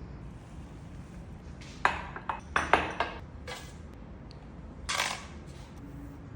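A few short clinks and knocks of kitchenware being handled, bunched together about two to three and a half seconds in, with one more knock about five seconds in, over a low steady hum.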